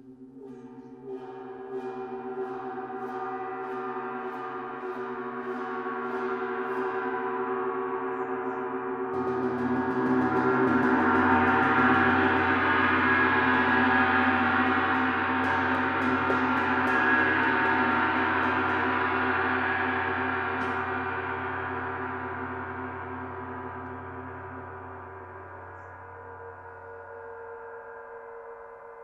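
A gong tuned to a planetary frequency, played with soft repeated strokes. Its shimmering tone swells to a peak about halfway through, then slowly fades.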